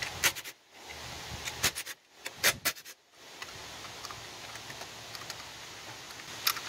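Short metallic clicks and clinks of screws and a cordless driver being handled while the case screws come off a GY6 scooter's CVT cover. The clicks come in clusters over the first three seconds and again near the end, over a steady hiss.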